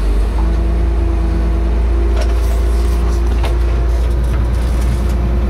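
Komatsu 300 excavator's diesel engine and hydraulics running under load, heard from inside the cab, as the bucket is moved to check that the hydraulic quick coupler has latched onto it. A steady low rumble with a steady whine, and a couple of short knocks.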